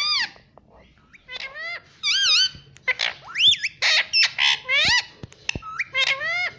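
Indian ringneck parrot calling: a run of about seven loud, high calls, each sliding up and down in pitch, in quick succession.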